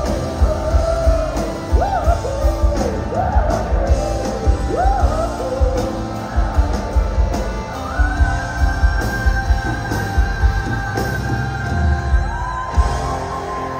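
Live rock band playing, with drums keeping a steady beat under electric guitars and piano, and the lead singer's sliding vocal lines and shouts over the top. About eight seconds in, a long held note comes in, giving way to a lower held note near the end.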